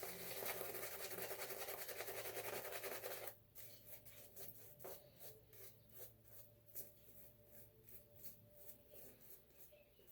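Shaving brush working lather against shaving soap: a brisk, dense wet rubbing for about three seconds, which stops suddenly and gives way to softer, scattered brush strokes and light taps.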